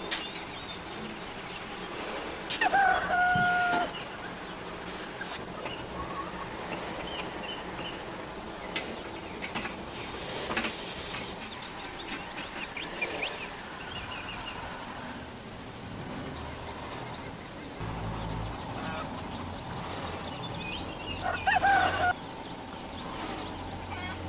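Rooster crowing twice, about three seconds in and again near the end, over smaller bird calls chirping in the background.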